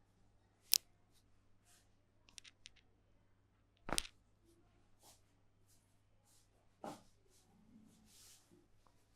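Barber's hands on the head during a head massage: a sharp click a little under a second in, a few faint clicks, then a louder slap about four seconds in and another near seven.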